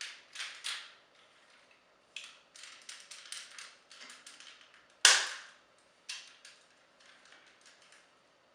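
Hard plastic parts of a Sixshot transforming action figure clicking and rattling as it is handled, with a loud sharp snap about five seconds in and a smaller one a second later, as the wings are pegged in and folded back into place.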